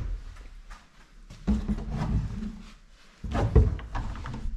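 Dull knocks and rubbing from a wooden closet door being opened, with a louder bump a little past three seconds.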